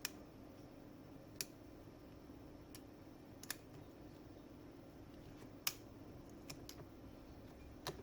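Sharp, irregular clicks of small hard objects, about seven in eight seconds, over a steady low hum.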